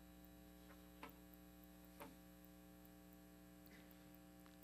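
Near silence: a steady electrical hum, with two faint clicks about a second apart.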